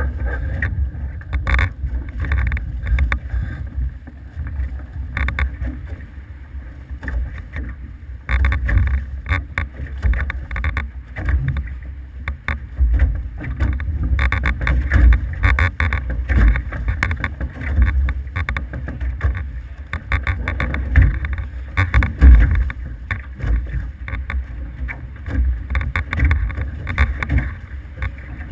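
Wind buffeting the microphone and water rushing past aboard an F18 catamaran under sail, a gusty rumble with irregular sharper splashes and slaps.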